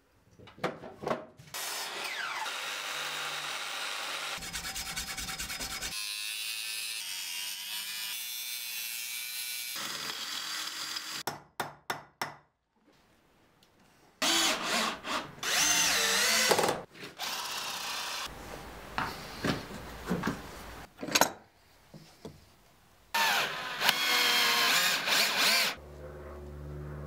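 Workshop tool sounds in a series of short takes: a mitre saw running and cutting for several seconds, a run of clicks, then tools working a steel pipe clamped in a vise in several loud bursts.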